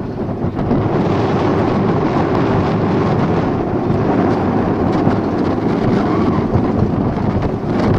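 Wind buffeting the camera microphone: a loud, steady, rumbling roar with no distinct events.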